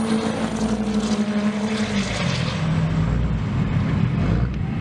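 Diesel pickup truck accelerating hard down a drag strip. Its engine note holds steady, then drops in pitch about two seconds in.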